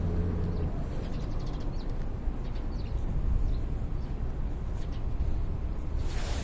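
Low rumble of wind buffeting the microphone, with a few faint, brief high chirps scattered through.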